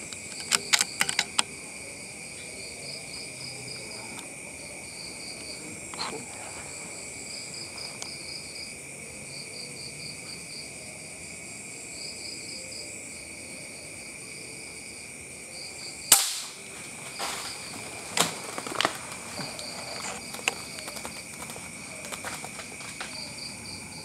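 Crickets and other insects chirr steadily. About 16 seconds in comes a single sharp crack of a gunshot, the loudest sound here, followed by a few lighter clicks. A quick cluster of clicks also sounds in the first second or two.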